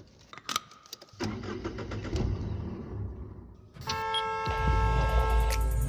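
A few sharp clicks, then a vehicle engine running with a steady low rumble. About four seconds in, music starts with a held chord, joined shortly after by a heavy bass.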